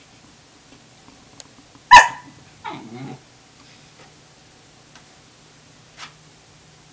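A dog barks once, sharp and loud, about two seconds in. Just under a second later comes a short vocalization that falls in pitch.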